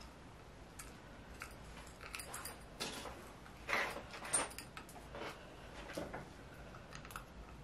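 Faint clicks, taps and rustles of hands handling a small chrome indicator housing and pulling thin wires through it, with a few louder rattles a little under four seconds in.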